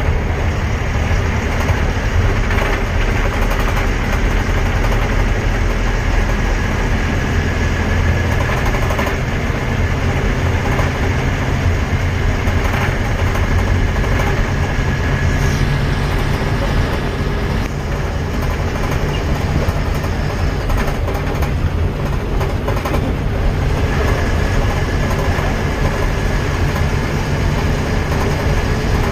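Steady low rumble of a moving road vehicle, engine and tyre noise together, holding an even level throughout.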